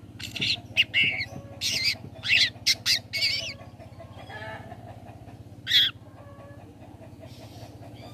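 Long-tailed shrike (cendet) calling: a quick run of about ten short, sharp, chattering calls over the first three and a half seconds, then a single loud call a couple of seconds later.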